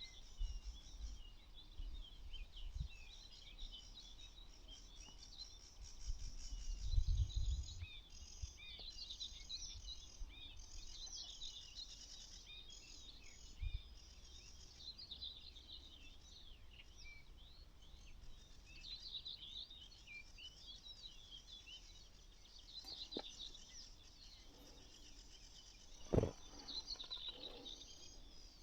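A chorus of many small birds chirping and singing at once, a steady stream of short, quick calls. A few dull knocks break in, the loudest near the end.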